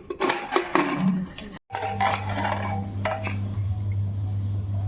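Metal utensils clinking and knocking against pots and dishes, then the sound cuts out and a steady low hum starts about a second and a half in, with a couple of light clicks over it.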